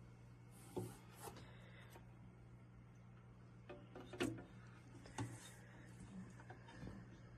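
Faint scattered small knocks and rubs, about five in all, over a steady low hum.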